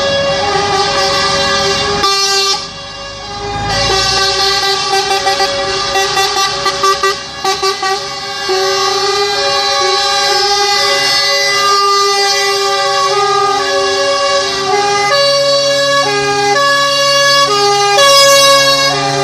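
Several truck air horns sounding at once in long, overlapping chords. About five seconds in, a run of short toots follows, and a lower horn tone joins in later.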